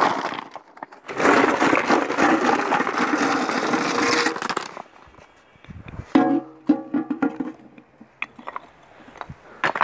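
Crushed stone poured from a plastic tub into a soak pit over broken roof tiles, the stones rattling and clattering as they pour for about three and a half seconds. A few seconds later a short held musical tone sounds, followed by scattered light clicks.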